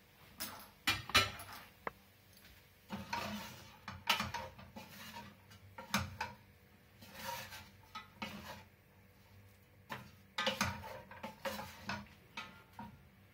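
Wooden spoon stirring chicken pieces in a stainless steel pot, scraping and knocking against the pot at irregular intervals.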